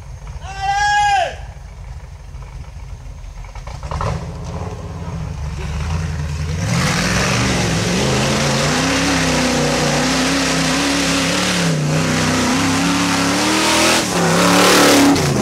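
Jeep CJ-style 4x4's engine revving up and down under load as it climbs a muddy slope, wheels spinning and throwing mud. It grows louder over the last several seconds and peaks as it reaches the microphone near the end.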